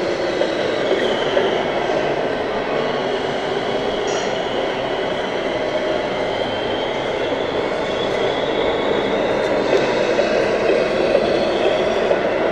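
1/14-scale radio-controlled model trucks running: a steady mechanical din with a faint high whine that drifts slowly in pitch.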